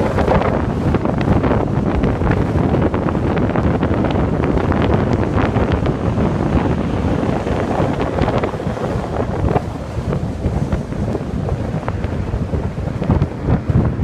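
Strong storm wind buffeting the microphone, with the surf of a rough, storm-driven sea beneath it.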